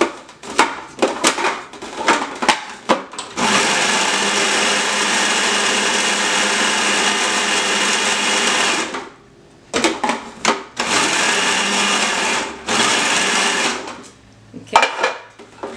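Electric food processor chopping cabbage: one steady run of about five seconds, then two shorter bursts, with clicks and knocks of the lid and container being fitted before and between the runs.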